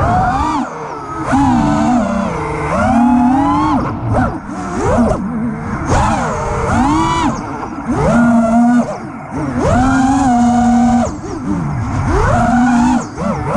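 Five-inch FPV quadcopter's four T-Motor F60 V3 2350 kv brushless motors spinning HQ 5x4.8x3 props: a loud buzzing whine that swoops up and down in pitch with each throttle punch and chop, holding steady for a second or so at times.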